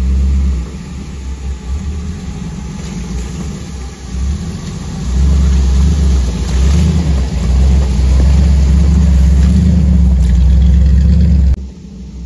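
Jeep engine working and revving as it crawls over rocks on a washed-out trail, growing louder as it passes close by. About a second before the end the sound drops suddenly to a quieter, more distant engine.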